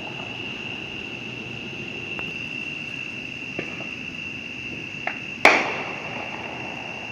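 Fireworks going off at a distance: small sharp pops about 2 and 3.5 seconds in and another just after 5 seconds, then one loud sharp bang that rings out briefly. A steady high insect chorus, crickets or katydids, goes on underneath.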